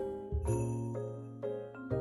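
Background music: an instrumental tune with notes struck on a steady beat over a held bass.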